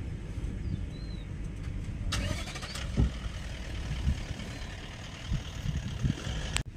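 Low, uneven rumble of an idling vehicle engine, with a short hissing burst about two seconds in and a couple of faint bird chirps.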